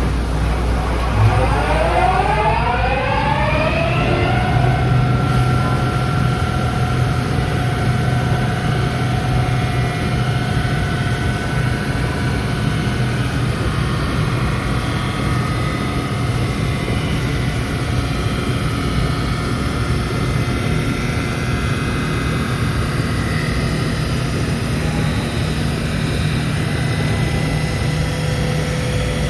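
A motor spinning up, its whine rising in pitch over the first four seconds or so, then running steadily at speed.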